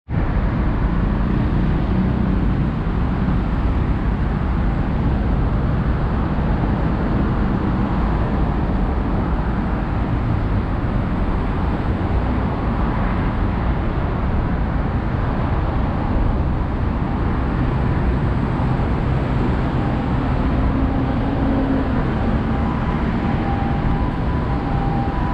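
Steady road traffic from a busy road and the elevated expressway over it: a continuous low rumble of passing cars and trucks that never lets up.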